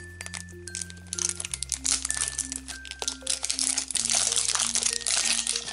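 Foil wrapper crinkling as it is peeled off a plastic surprise egg, the crackling growing dense about two seconds in, over background music.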